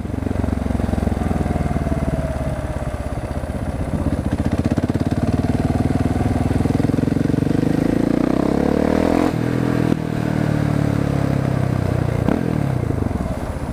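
Husqvarna 701 Supermoto's single-cylinder four-stroke engine pulling through the gears on an open exhaust with the dB killer removed: the revs climb, drop sharply at a gear change about nine seconds in, climb again and drop once more near the end.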